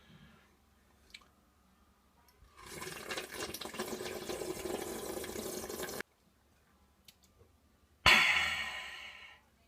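Rushing water for about three seconds that cuts off abruptly, then a sudden louder rush of water about eight seconds in that fades away over a second and a half.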